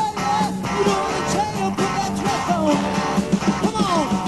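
Live rock band recording played from vinyl: a full band playing, with guitar notes bending up and down in pitch and some singing.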